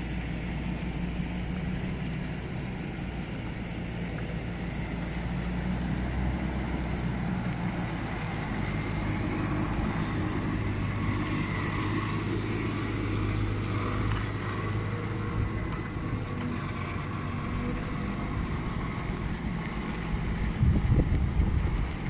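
Nissan Patrol 4x4's engine running steadily at low revs while hitched to a boat trailer.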